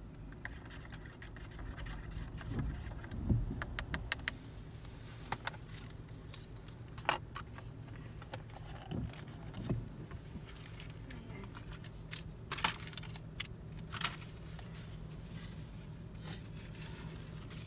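Steady low hum inside a parked car's cabin, with scattered sharp clicks and taps. A few of the clicks are louder.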